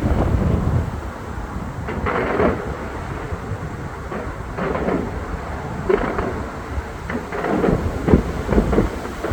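Aerial fireworks going off: a deep rumbling boom at the start, then a string of separate crackling bursts, several in quick succession near the end.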